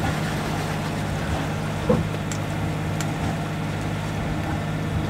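Sailboat's engine running steadily under motor, a low, even drone. There is one brief rising sound about two seconds in.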